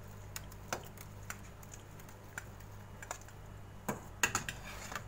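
Light, irregular clicks and taps of a metal colander and spoon against a steel baking tray as cooked penne is tipped in, with two louder knocks about four seconds in.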